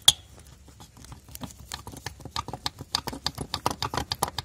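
A sharp metal click from the latch on the steel seed box of a tractor-drawn groundnut planter, just after the start. It is followed by a run of quick, light clicks and rattles that grows busier toward the end.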